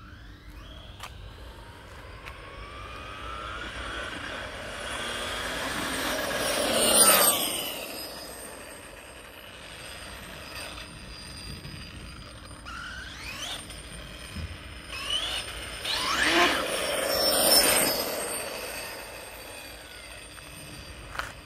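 Brushless-converted MCD W5 RC car's electric motor (TP Power TP5860, 1440 KV) whining as it accelerates, its pitch rising. It is loudest about seven seconds in, where the pitch drops sharply as the car passes. A second run builds to another peak around sixteen to eighteen seconds in.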